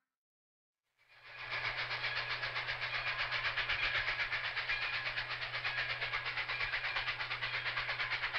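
Train running on the rails, a steady fast rhythmic clatter over a low hum, fading in about a second in.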